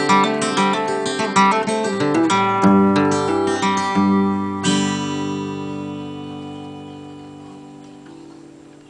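Acoustic guitar played solo: a run of picked notes, then about halfway a final strummed chord left ringing and slowly fading out.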